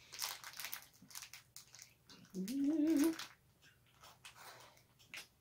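Plastic cookie wrapper crinkling and tearing as it is opened by hand, in irregular crackles and rustles. A brief rising vocal hum sounds about two and a half seconds in.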